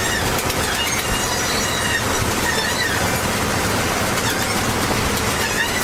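Loud, steady machinery noise with high, wavering squeals running over it.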